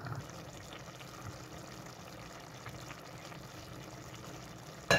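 Large aluminium pot of red kabsa (chicken and rice in tomato broth) simmering on a gas stove, a steady low bubbling. Near the end a single sharp metal knock.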